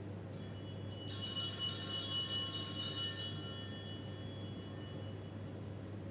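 High metallic jingling and ringing, like small bells, starting softly, swelling about a second in and dying away by about four seconds.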